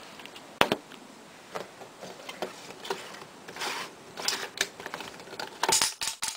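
Plastic Beyblade assembly chamber being twisted by hand: a string of small plastic clicks and scrapes, with louder rubbing bursts about halfway through and near the end, as the stacked Beyblade parts are pressed and locked together.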